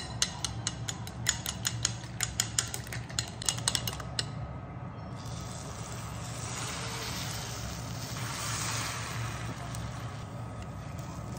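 Long chopsticks beating eggs in a glass bowl, clicking rapidly against the glass for about four seconds. Then egg mixture poured into a hot rectangular tamagoyaki pan sizzles.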